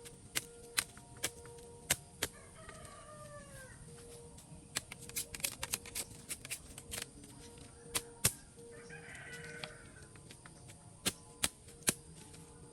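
A bird calling twice: a falling cry about two seconds in, then a shorter, higher call near nine seconds. Irregular sharp knocks come and go throughout.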